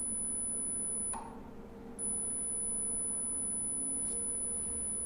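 Electric snowmobile's ME1115 motor and Kelly controller running the motor angle identification: a steady high-pitched electric whine over a low steady hum. The whine cuts out about a second in and comes back a second later.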